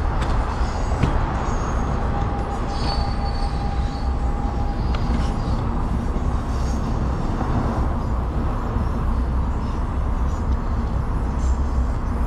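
Double-stack intermodal freight train rolling past: a steady low rumble of wheels on rail, with a thin wheel squeal for a few seconds about two seconds in.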